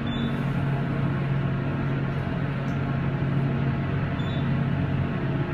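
Hydraulic passenger elevator car rising, heard from inside the cab: a steady low hum from the hydraulic drive.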